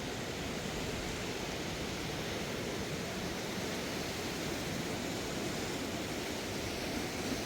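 Steady rushing of a swollen river in flood, an even unbroken roar of water with no separate events.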